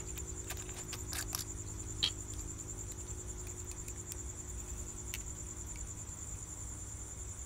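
Cricket trilling steadily, a continuous high-pitched pulsing trill. A few faint clicks come from a food-colouring bottle and its dropper being handled.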